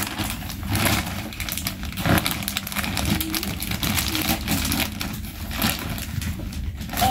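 Clear plastic bag crinkling and rustling as hands rummage through it, an irregular run of sharp crackles.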